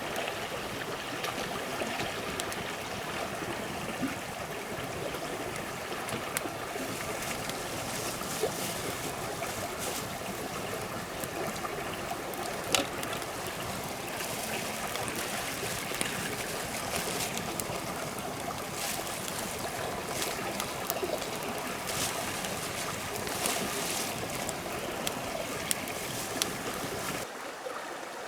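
Steady rushing of a flowing stream, with scattered sharp clicks and knocks over it and one louder knock about halfway through. The sound changes abruptly near the end, where the low rumble drops away.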